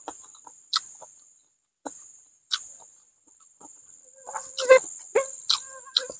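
Mouth sounds of eating fried catfish by hand: sharp lip smacks and chewing clicks a few times, over a thin steady insect buzz. From about four seconds in come a few short pitched animal calls, the loudest sounds here.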